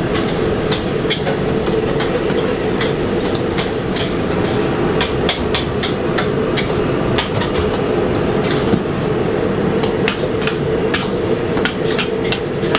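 Metal ladle scraping and knocking against a steel wok while stir-frying pad thai noodles, a quick, irregular run of clanks over a steady hum.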